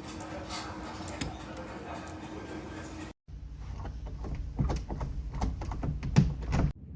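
Door lock and handle being worked by hand: a steady hum, then after an abrupt cut a quick run of sharp clicks and knocks over a low rumble.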